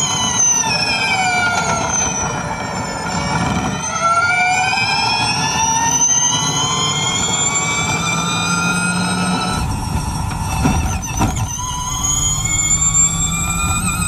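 High-pitched whine of a Renault e.dams first-generation Formula E car's electric motor and gearbox, heard from onboard, with several tones together. The pitch falls for about three seconds as the car slows, then climbs steadily as it accelerates. A brief thump comes about eleven seconds in, after which the whine rises again.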